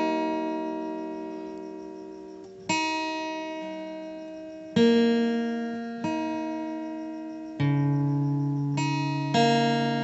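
Background music of slow plucked-string chords, a new chord struck every one to three seconds and left to ring out and fade.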